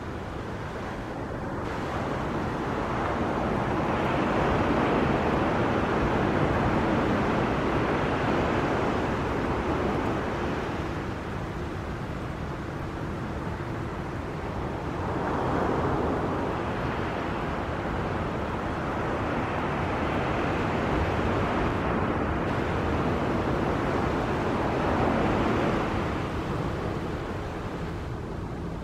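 Jet airliners' engines at takeoff power during their takeoff rolls, a steady rushing rumble that swells and eases three times.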